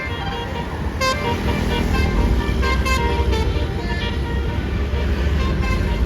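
Bus telolet horn playing a string of short tooting notes at changing pitches, over the low rumble of a bus engine.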